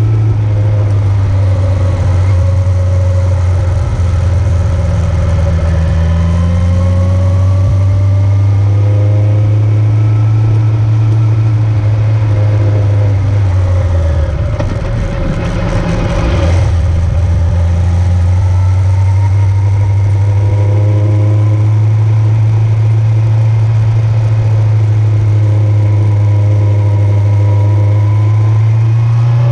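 Vehicle engine running steadily while under way, a loud low hum. About halfway through the note briefly drops and eases off, then picks back up to a steady run, rising a little near the end.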